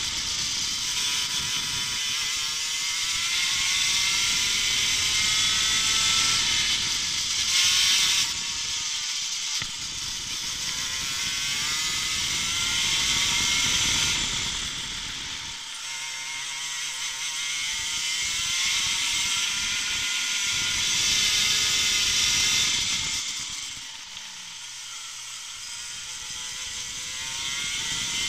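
Racing kart engine at speed, its pitch climbing repeatedly as it accelerates and dropping as it slows, with wind rushing over the microphone. The revs and loudness fall away about halfway through and again near the end.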